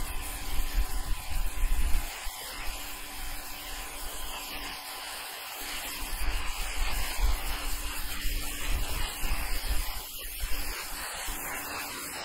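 Steady hissing spray of a Ryobi 1600 psi electric pressure washer's turbo-nozzle jet blasting moss and grime off roof shingles, with bursts of low rumble in the first two seconds and again in the middle.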